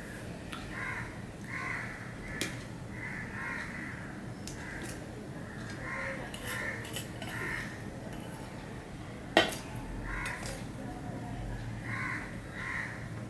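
Crows cawing over and over in short calls, with a few clinks of steel plates. The sharpest, loudest clink comes about nine seconds in.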